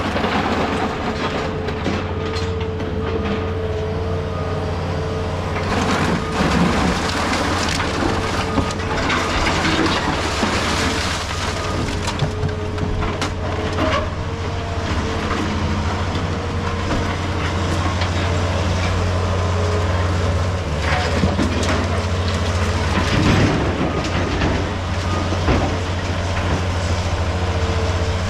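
A heavy diesel machine running steadily under load, with irregular crunching and knocking of broken concrete rubble being handled.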